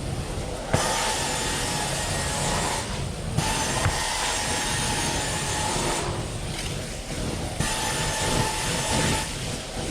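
Carpet-cleaning extraction wand running on the suction of a truck-mounted unit, a loud hiss over a faint steady whine, with short breaks about every three seconds between strokes.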